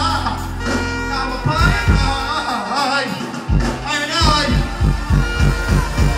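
Live dancehall performance through a large PA: a male deejay's voice chanting over a bass-heavy riddim. The bass cuts out for a moment about three seconds in, then the beat comes back in.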